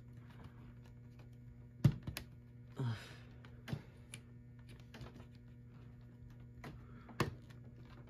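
Scattered sharp clicks and taps from the red plastic housing and circuit board of a Fire-Lite ANN-80 annunciator being handled while wires are fitted. The loudest clicks come a little under 2 s in and just past 7 s in, with a brief rustle near 3 s, over a steady low hum.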